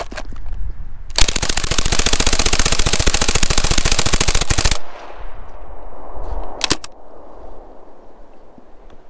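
Drum-fed Thompson M1928 submachine gun firing one long full-auto burst of about three and a half seconds, which stops abruptly. Echo trails off after it, and two sharp clicks come about two seconds later.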